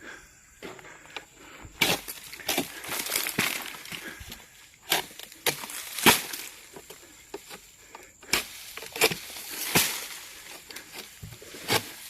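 Irregular rustling and sharp cracks, like footsteps and handling through dry leaves, twigs and undergrowth; no chainsaw is running.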